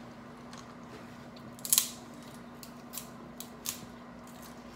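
Shellfish shells being cracked and picked apart by hand: scattered sharp cracks and clicks, the loudest a little under two seconds in.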